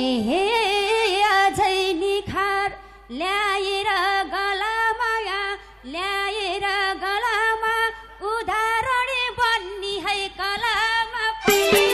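A woman singing a Nepali lok dohori phrase solo into a microphone, unaccompanied, her voice wavering and ornamented, in several phrases with short breaks between. The instruments come back in near the end.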